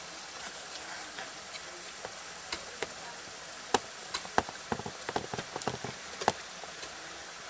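Ice axes and crampons striking into a frozen ice wall: a few scattered sharp knocks, then louder hits with a quick run of strikes about four to six seconds in, over a steady hiss.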